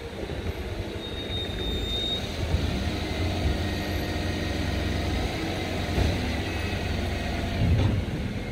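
Waste collection truck's diesel engine running nearby, a steady low rumble that grows louder over the first couple of seconds and then holds.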